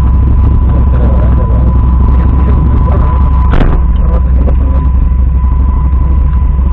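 Vehicle engine idling, heard from inside the cabin: a steady low rumble with a constant thin tone over it. A single short knock comes about three and a half seconds in.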